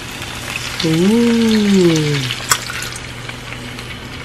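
Fish-sauce glaze poured into a hot frying pan of fried chicken wings, sizzling and crackling, loudest in the first couple of seconds. A person's voice makes one drawn-out sound about a second in, and there is a sharp click a little later.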